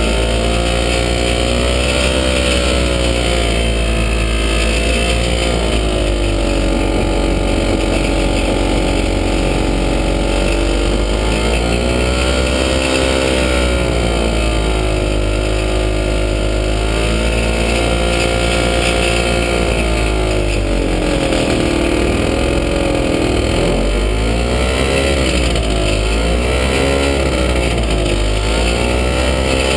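Falcon XP single-seat ultralight's engine running while the aircraft taxis on grass, its pitch rising and falling with the throttle in slow swings, then in several quicker blips of the throttle during the last third.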